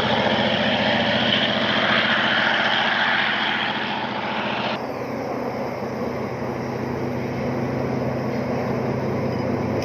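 Sound of an HO-scale R100 diesel-electric locomotive model running: a steady diesel engine drone. A brighter rushing sound over the top cuts off suddenly about five seconds in, leaving a quieter, lower drone.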